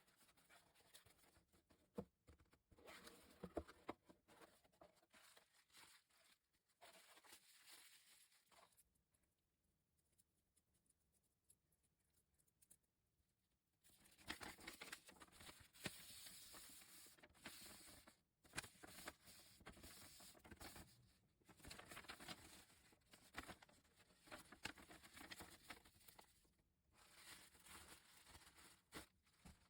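Faint handling noises: rustling and scraping in bursts with scattered light clicks, broken by a few seconds of near silence in the middle.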